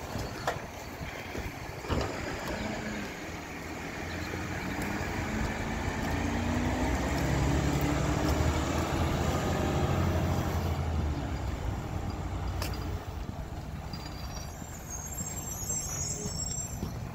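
A few knocks as a trash can is emptied into the hopper of a Mack GU rear-loader garbage truck. The truck's diesel engine then revs up as it pulls away, its pitch rising and loudest midway, and fades as the truck drives off up the street.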